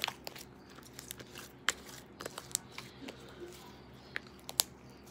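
Slime being poked and pressed by fingers, giving a scatter of sharp little sticky pops and clicks at irregular intervals, the loudest about four and a half seconds in.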